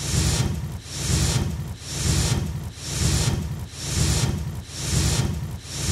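A regular, noisy pulsing, about one pulse a second, each pulse a low rumble with a hiss over it, with no voice.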